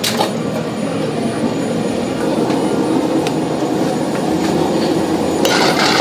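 Busy noodle-shop kitchen: a steady loud din with the occasional clink of porcelain bowls and utensils, turning into a quick run of clatter near the end.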